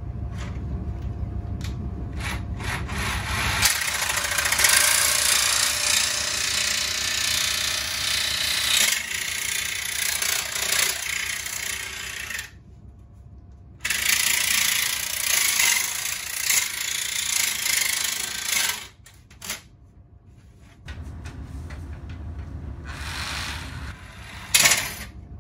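Jigsaw with a fine metal-cutting blade cutting through 2 mm aluminium sheet: a loud, even sawing noise that stops for about a second and a half midway, drops away again for a couple of seconds later on, and then resumes.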